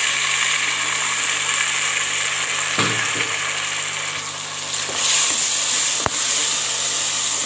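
Ginger-garlic paste and blended tomato sizzling hard in hot oil with browned onions in a metal pot as they are stirred with a wooden spoon: a steady, loud frying hiss, with a couple of sharp knocks about three and six seconds in.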